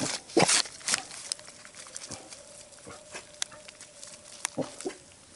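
Pet pig grunting in a series of short grunts, the loudest in the first second and another pair near the end.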